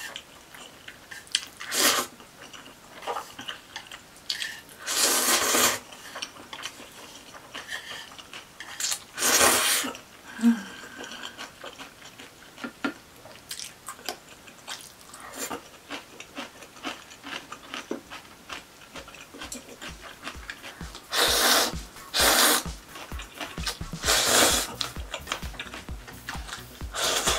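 Eating spicy cold noodles with chopsticks: about six loud slurps of a second or less, with chewing and small clicks of chopsticks against the bowl and pan between them.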